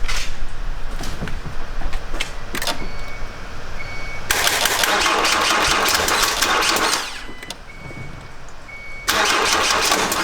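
A car's starter motor cranking, boosted by a portable jump starter, in two tries: one of about three seconds, then a shorter one near the end. The engine does not catch; the jump starter reports poor clamp contact on the battery.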